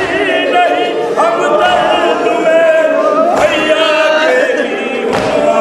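Noha (Shia lament) sung without instruments: a male lead voice with voices joining in, long held notes that waver in pitch. Two dull thumps land, one a little over halfway through and one near the end.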